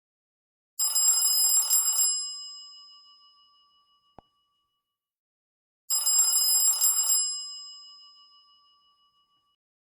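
Android phone ringtone imitating an old telephone bell: two rings about five seconds apart, each a rapid bell trill of just over a second that then rings out.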